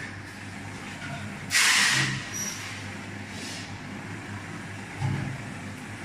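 Stainless-steel double cone mixer running with a steady electric hum. There is a sudden hiss about a second and a half in, lasting about half a second, and a short low thump near the end.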